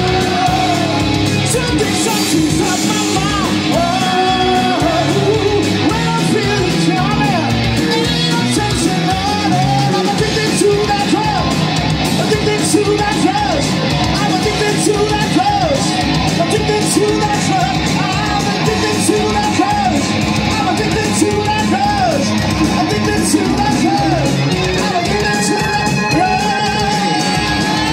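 Live rock band playing: a steady drum beat under bass and electric guitar, with the lead singer's voice sliding up and down over it.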